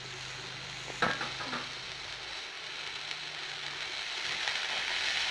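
Shredded drumstick flesh frying with onions in oil in a pan, sizzling steadily and getting louder toward the end. A wooden spatula stirs it, knocking sharply against the pan about a second in.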